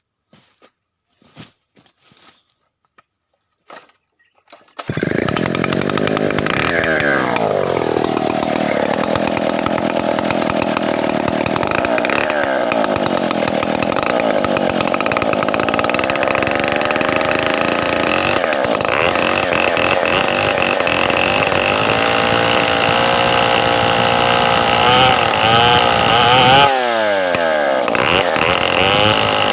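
After a few faint clicks, a Stihl 070 two-stroke chainsaw comes in loud about five seconds in and revs up. It holds high, steady revs for about twenty seconds, as when ripping a log lengthwise. Near the end the revs swing up and down a few times.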